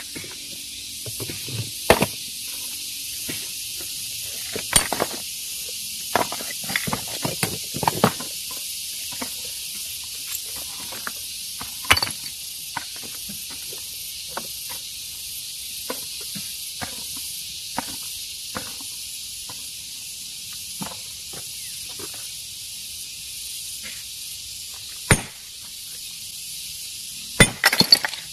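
Sharp, irregular knocks of stone from hand stone-breaking, with a cluster about six to eight seconds in and a loud group near the end, over a steady high hiss.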